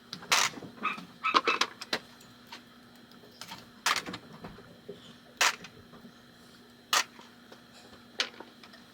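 Scattered sharp clicks and short clatters of small metal hardware and tools being handled on a pinball playfield during teardown, about a second or so apart, over a faint steady hum.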